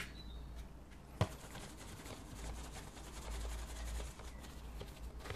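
Faint handling noises from the painter at work: soft rustling and scraping, with one sharp tap about a second in, over a steady low hum.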